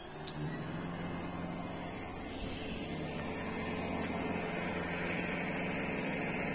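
Permanent-magnet DC motor spinning up over the first few seconds and then running steadily with a high whine. It is powered directly from series-wired solar panels at about 130–135 V with no controller, below its rated 180 V. A single click comes just after it starts.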